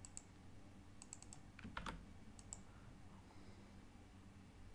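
Faint, scattered clicks of a computer keyboard and mouse, with a quick cluster of clicks about a second in, over near-silent room tone.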